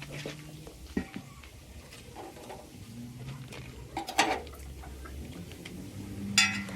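Scattered metal clanks and knocks from handling tools and metal parts, with a louder clatter about four seconds in and a ringing metallic clang near the end.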